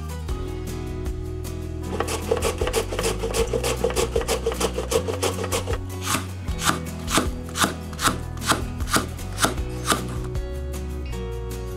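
Chef's knife cutting a raw fennel bulb on a wooden cutting board: a quick run of cuts, then slower separate slicing strokes about two a second. Soft guitar music plays underneath.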